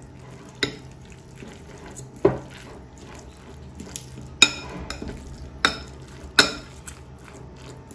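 Metal utensil stirring tuna salad with mayonnaise in a glass bowl: soft scraping, with five sharp clinks of metal against the glass spread through it, over a low steady hum.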